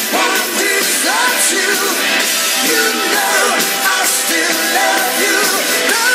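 Rock song playing at steady level, with a lead vocal line over full band backing.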